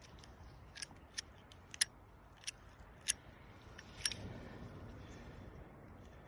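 Small sharp metallic clicks, about six spread over three seconds, from handling a Zippo lighter just pulled out of the water on a magnet, followed by a brief low rustle.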